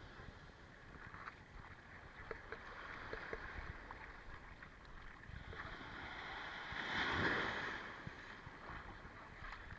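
Shallow sea water sloshing and lapping at the shore, with one louder wash swelling and fading about seven seconds in, and low rumbles of wind on the microphone.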